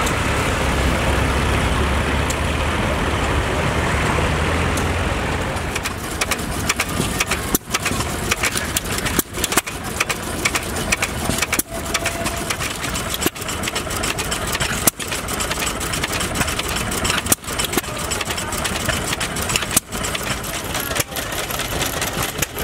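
A vintage tractor engine running steadily as the tractor drives by. Then small stationary engines run with sharp single firing strokes about one to two seconds apart, an uneven beat typical of hit-and-miss engines.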